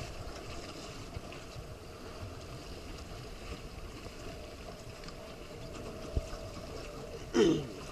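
Choppy water sloshing against a moving boat's hull, with wind on the microphone. Near the end comes a brief loud sound sliding down in pitch.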